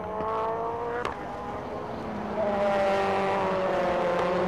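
Formula Two race cars' turbocharged four-cylinder engines at full throttle. The pitch climbs and breaks with a sharp upshift about a second in. From about halfway a louder car comes in, its engine note sinking slowly as it goes by.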